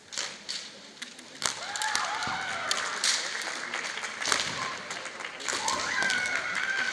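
Bamboo shinai clacking and striking against each other in a kendo bout, with the fencers' high-pitched kiai shouts starting about a second and a half in and a long, slowly falling shout near the end.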